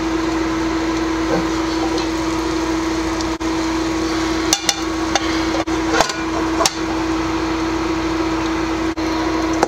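A ceramic plate knocking against a metal wok several times as it is laid over the pan to flip a tortilla, over the steady hum of a running portable cooktop with a constant tone in it.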